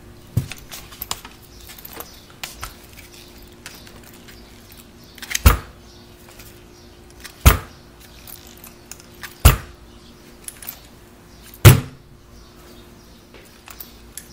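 RC monster truck dropped and landing on its suspension four times, each landing a sharp thud about two seconds apart, with light clatter between. It is a landing test comparing shock pistons of different hole sizes.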